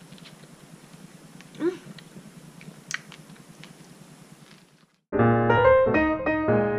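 Quiet room background with a few faint clicks and one short rising voice-like sound. Then keyboard music with sustained chords cuts in abruptly about five seconds in and is the loudest sound.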